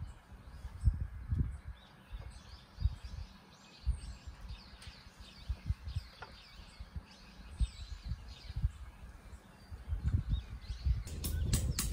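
Small birds chirping and singing, with wind buffeting the microphone in irregular low thuds. Near the end a fast run of sharp, high ticks begins and the wind noise grows louder.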